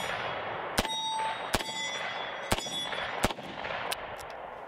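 Four .357 Magnum shots from a Rock Island Armory AL3.0 snub-nose revolver, spaced about three-quarters of a second to a second apart, with a brief ringing tone hanging after them, then a few faint clicks near the end.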